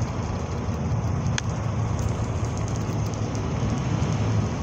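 Steady low rumble of engine and road noise heard from inside a moving vehicle. There is one brief click about a second and a half in.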